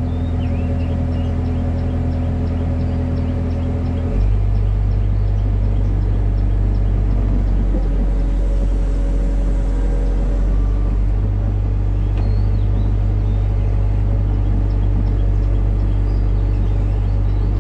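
Hitachi excavator's diesel engine running with a steady low drone; about four seconds in the note shifts and gets a little louder.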